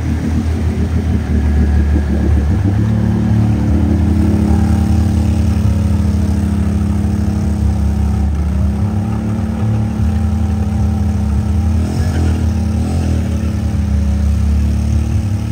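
ATV engine running hard under load as the quad churns through a deep, water-filled mud hole, with mud and water splashing off the tires. The revs dip and climb quickly twice near the end.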